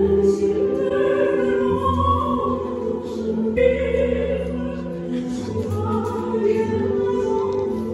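Gospel singing: long held vocal notes with a full, choir-like sound over accompaniment, phrase by phrase, with a new phrase starting about three and a half seconds in.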